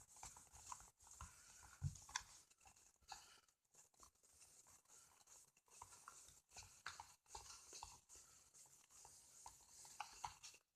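Near silence, with faint scattered squishes of homemade slime (laundry detergent and shaving cream) being mixed in a bowl, a couple about two seconds in and a few more near the end.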